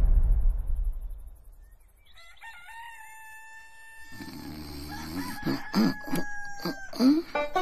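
A cockerel crowing at daybreak: a long pitched call with high overtones starts about two seconds in, followed near the end by a quick run of short, sharp sounds. Before the crow, a louder noise fades away in the first second.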